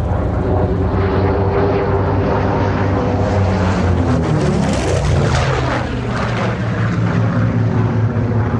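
Grumman F7F Tigercat's twin Pratt & Whitney R-2800 radial engines running loud as the aircraft passes by, the pitch dropping after it goes past about halfway through.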